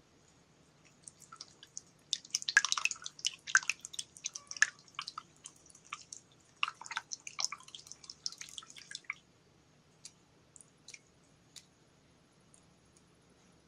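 Slime being squished and worked by hand, a run of wet, sticky pops and crackles that thins out to a few scattered faint clicks about nine seconds in.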